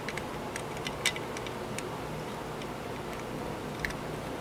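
Scattered small metallic clicks and taps from a diecast toy van being handled as its thin steel baseplate is fitted onto the metal body, the sharpest about a second in, over a steady low hum.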